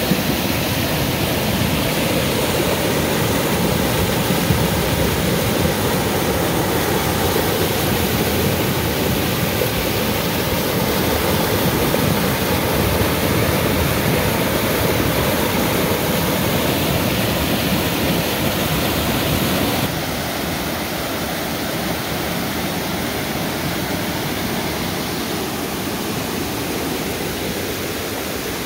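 Muddy river in flood rushing over a rocky ford, a loud, steady rush of turbulent whitewater from the strong current. About twenty seconds in it drops a little quieter.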